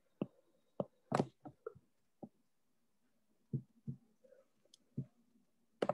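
About ten soft, short knocks and taps at irregular spacing, clustered in the first two seconds with a few more later, over a faint steady hum; no speech.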